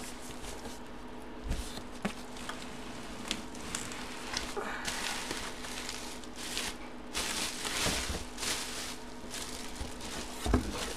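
Bubble wrap and plastic packaging rustling and crinkling in irregular bursts as a full-size football helmet is lifted out of a cardboard box, with a few dull knocks of the helmet against the box.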